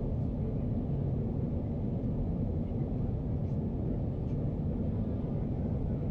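Steady low rumble inside the passenger cabin of a Boeing 737 airliner in flight: jet engine and airflow noise.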